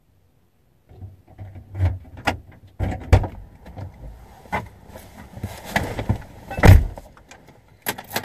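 A car door being opened and someone climbing into the driver's seat: a string of clicks, knocks and clothing rustle, with one loud thump about six and a half seconds in.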